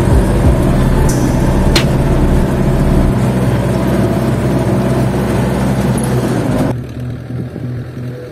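Belarus tractor's diesel engine running steadily under ploughing load, heard from inside the cab, with one sharp knock about two seconds in. Near the end it cuts off abruptly to a much quieter sound.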